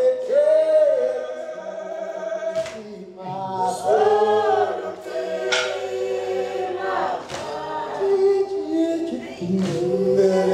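Mixed Zulu a cappella choir of men and women singing in harmony, many voices holding long chords together.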